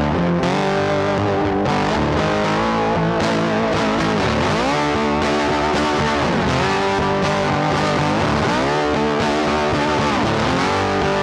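Rock music with distorted electric guitar, its notes changing in steps and bending down and back up every couple of seconds.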